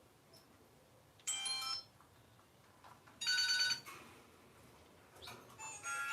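Classic Nokia mobile phone sounding its electronic ringtone: two short ringing bursts about two seconds apart, then a continuous tune begins near the end.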